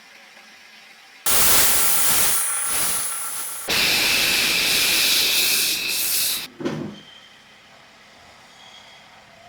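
Compressed air hissing from a blow gun in two long blasts of about two and a half seconds each, then a short puff.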